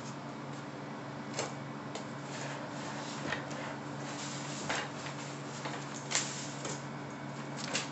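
Handling noise of a foam model airplane and its styrofoam packaging: a handful of sharp taps and knocks with light rustling as the parts are moved and lifted, over a steady low hum.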